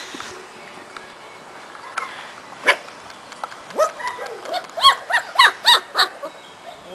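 Four-week-old puppies yelping and squealing while they wrestle: a sharp yelp about two and a half seconds in, then a quick run of high yelps that rise and fall in pitch near the end, about three a second.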